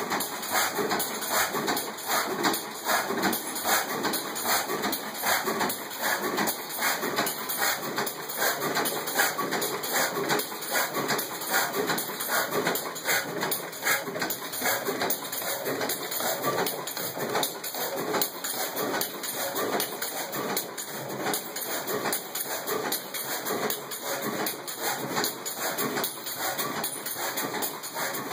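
Superior stationary gas engine running steadily while it drives an oilfield pumping power, its exhaust and moving parts giving a continuous, rapid, even knocking beat.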